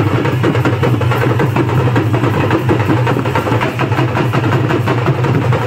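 A group of double-headed barrel drums beaten together in a dense, continuous rhythm over a steady low drone.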